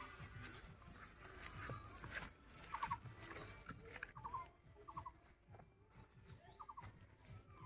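Faint bird calls, short chirps of three quick notes repeated every second or so, with a few faint clicks in the first few seconds.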